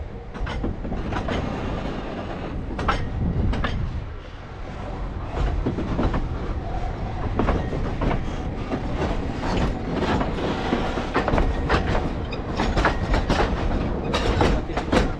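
Narrow-gauge steam train running on its line: the wheels clatter over the rails with a steady rumble and frequent irregular knocks from the carriages.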